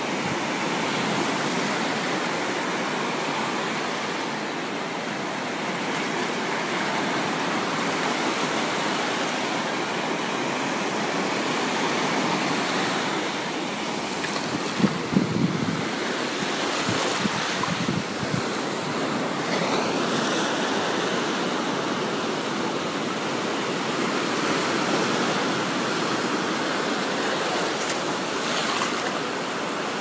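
Surf breaking and washing up a sandy beach in a steady rush of foam, with a few brief thumps about halfway through.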